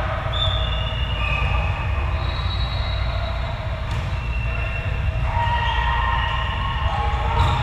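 Athletic shoes squeaking on the court floor, many overlapping squeals at different pitches, over a steady low hum of the hall. A single sharp smack of a hand on the volleyball comes about four seconds in, and another near the end.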